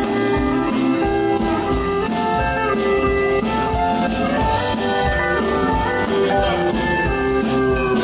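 Live country band playing an instrumental break with no singing: drum kit and electric and acoustic guitars, with a melody of long held notes over a steady beat.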